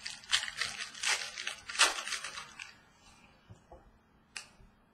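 Foil trading-card pack wrapper crinkling as it is torn open, with a rapid crackle of plastic for about two seconds. A single sharp click follows near the end.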